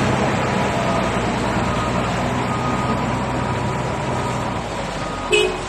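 A heavy vehicle's engine running steadily, its hum fading about three-quarters of the way through, with a brief voice near the end.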